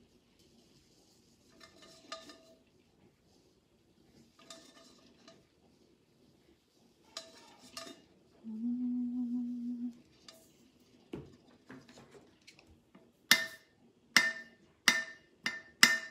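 Glitter rattling in a plastic shaker bottle, shaken in short bursts every few seconds over a tumbler. A steady low hum lasts about a second and a half just past the middle, and a series of sharp knocks, the loudest sounds here, comes near the end.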